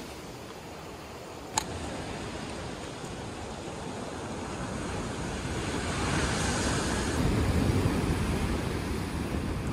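Ocean surf washing in, a steady rush of water that swells to a louder wave about six to eight seconds in, with wind on the microphone. A single sharp click comes about a second and a half in.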